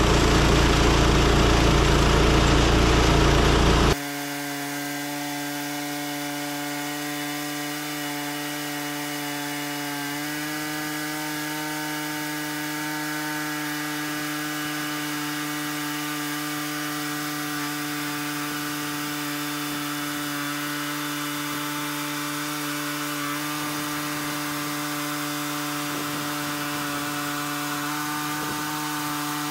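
Woodland Mills HM130Max portable band sawmill running under load, its band blade sawing lengthwise through a log. About four seconds in, the sound suddenly drops in level and thins to a steady pitched hum for the rest.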